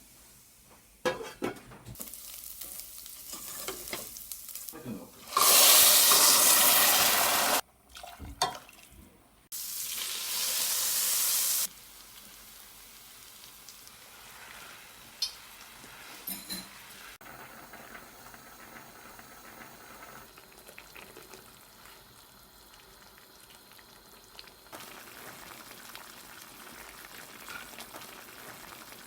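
Pork steak sizzling as it fries in a hot pan, with a few clicks and knocks early on. The sizzle is loudest for about two seconds about five seconds in and again around ten seconds, then settles to a steady, quieter sizzle.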